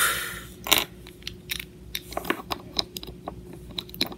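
Irregular sharp clicks and short rustles of hard plastic Lego pieces being handled by hand, with a brief rustle at the start and another just under a second in.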